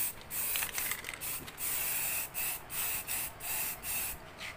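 Aerosol can of high-temperature black spray paint hissing in a run of short bursts, about two a second, stopping near the end.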